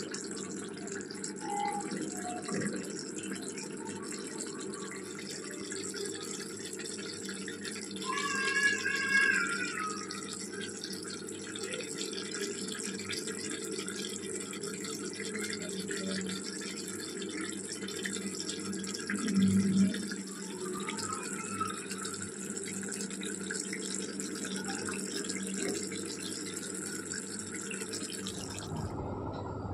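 Chicken curry simmering in a kadai on a gas stove: a steady bubbling hiss, with a ladle stirring the gravy now and then and one short louder knock about twenty seconds in.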